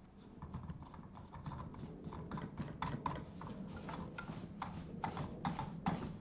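Irregular clicks and taps, about two or three a second, with rustling of plastic sheeting and canopy fabric as a parasol finial is fitted and screwed onto the top of the frame through the canopy's centre hole.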